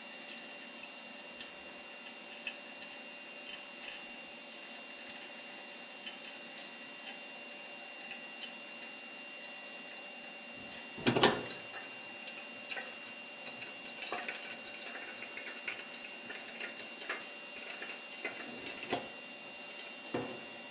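Kerosene trickling and dripping as it is poured into a hurricane lantern's fuel tank, with scattered small ticks and one louder knock about eleven seconds in.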